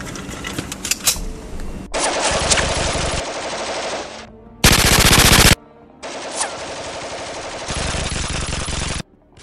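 Automatic rifle fire in several long bursts of rapid shots. The loudest is a short burst near the middle. It is a dubbed gunfire sound effect laid over airsoft props.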